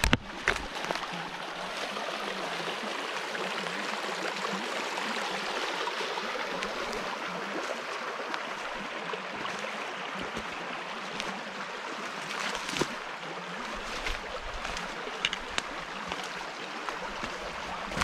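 Shallow stream babbling steadily over stones, with a few short sharp clicks, the clearest near the start and about two-thirds of the way through.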